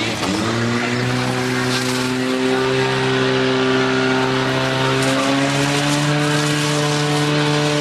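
Portable fire pump's engine running hard, driving water through the attack hoses to the nozzles. Its pitch dips briefly at the start, then climbs and holds steady, and steps up again about five seconds in.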